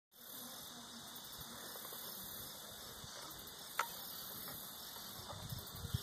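Insects chirring steadily in the background, with a single sharp click about four seconds in and a few low thumps near the end.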